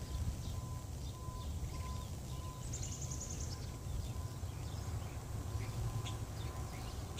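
Outdoor ambience: a constant, unsteady low rumble of wind on a phone microphone, with scattered short high chirps of small birds and a brief rapid trill about three seconds in.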